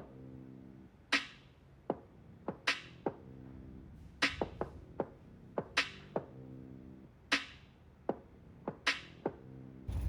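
Background music: an electronic beat of sharp drum-machine hits over sustained low synth chords. Near the end it cuts off into a steady low rumble.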